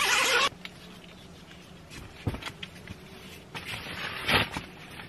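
Tent door zipper pulled along its track, stopping about half a second in. Then quieter rustling of fabric and a few soft thuds as a duffel bag is set down on the tent floor.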